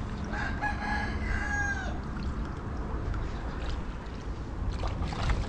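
A rooster crowing once, a long held call that drops in pitch at the end, over a steady low rumble.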